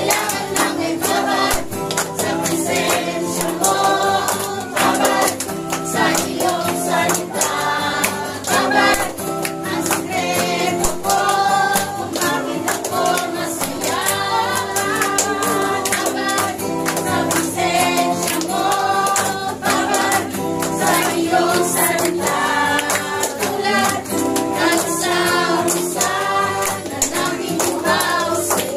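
A group of voices singing a Tagalog praise and worship song with instrumental accompaniment and percussion, sustained sung lines running without a break.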